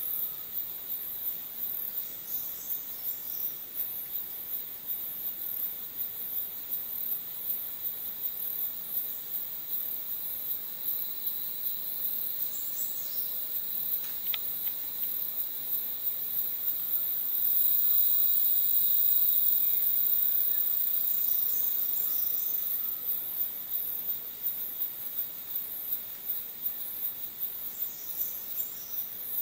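Rainforest insect chorus: a very high insect call pulsing about twice a second over a steady high whine. About seventeen seconds in, a high buzzing swells louder for several seconds, then fades back into the pulsing.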